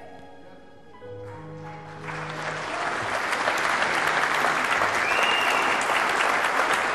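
Soft background music with long held notes, then an audience breaking into applause about two seconds in that builds and goes on loudly, the music fading under it.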